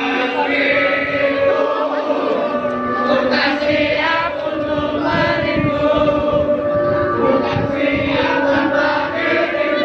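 A song with many voices singing together over steady held backing notes.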